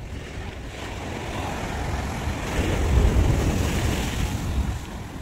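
Sea surf breaking against rocks below a sea wall: a rush of water that swells to a peak about three seconds in, then dies away. Wind rumbles on the microphone underneath.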